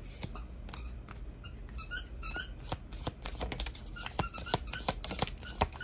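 A squeaky rubber pet toy being squeezed and chewed: short squeaks in quick succession from about two seconds in, among many small clicks.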